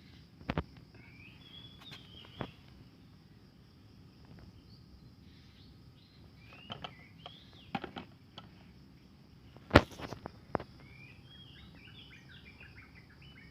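Birds chirping in short calls, with a quick run of chirps near the end, over a steady high insect drone. A few sharp knocks break in, the loudest a little past the middle.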